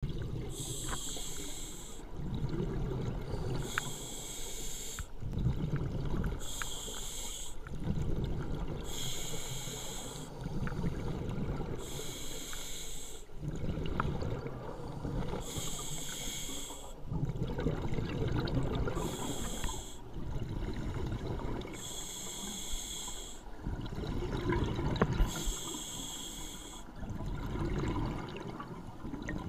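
Scuba diver breathing through an open-circuit regulator underwater. A hissing inhale through the regulator comes about every three seconds, each followed by a low, rumbling burst of exhaled bubbles.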